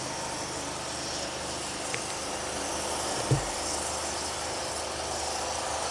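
BNSF intermodal freight train rolling past slowly, a steady mix of wheel and rail noise with a high hiss. A low thump sounds about three seconds in.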